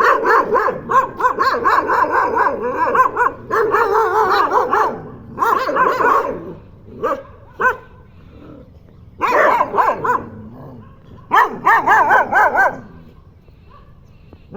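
Dogs barking in several long, loud bouts with short gaps between them, falling quiet near the end.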